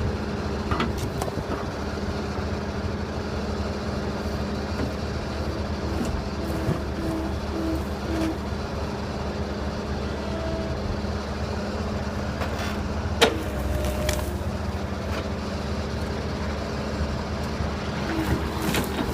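Engine of a heavy tree-removal machine running steadily as it pulls out apple trees, roots and all, with one sharp crack about thirteen seconds in.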